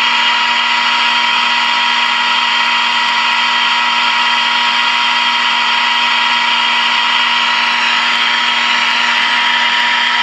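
Steady, loud buzzing tone over hiss from the speaker of a 1947 Admiral AA5 tube radio. It is the signal generator's 1400 kHz test signal being received while the antenna trimmer is peaked for maximum output during alignment.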